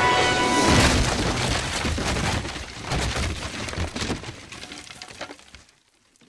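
Cartoon crash sound effect: rubble and debris crumbling and clattering after a blast through a floor, slowly dying away over about five seconds.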